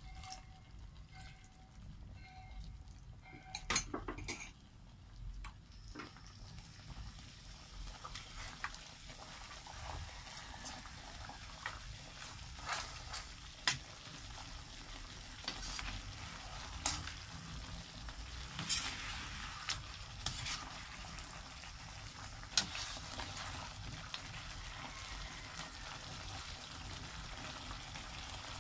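Filipino pork steak with onions sizzling in sauce in a metal pan while a spatula stirs it, knocking and scraping against the pan every second or two. The sizzle is faint at first and grows stronger after about six seconds.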